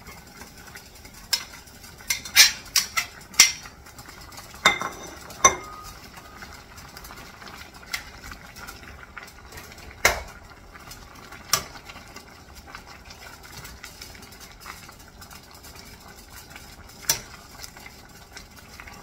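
Metal ladle clinking and scraping against a stainless steel saucepan and a ceramic bowl as greens are pushed into a pot of steaming broth and stirred: a quick run of sharp clinks in the first few seconds, then single clinks now and then over a faint steady hiss.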